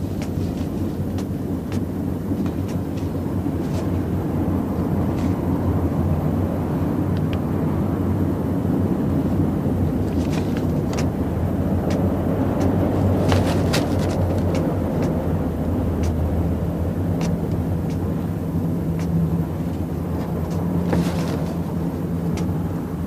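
Steady low rumble of street background noise, with scattered faint clicks.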